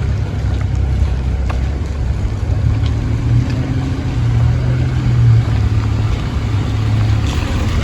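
A motor vehicle engine running close by: a low, steady hum that grows stronger in the middle and eases off near the end.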